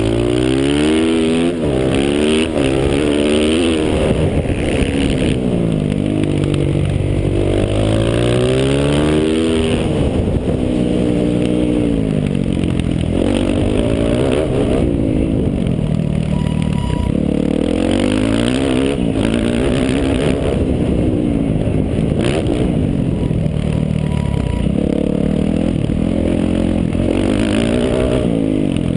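Stock Yamaha YZ450F's single-cylinder four-stroke engine, heard from on board the bike as it races. The engine note climbs again and again as the throttle opens and falls back between the rises.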